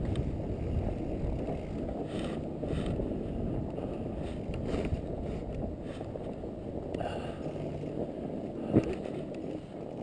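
Fat bike riding through snow: a steady rumble of wind on the microphone and the wide tyres rolling over snow, with a few short crackles and a sharp knock near the end.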